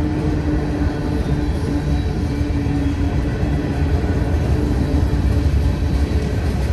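Freight cars of a long mixed freight train rolling past a grade crossing, a steady low rumble of steel wheels on the rails.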